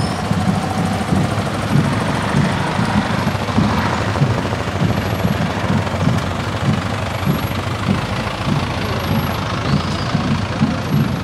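Low, rough engine rumble of slow-moving police motorcycles and a pickup truck passing close by.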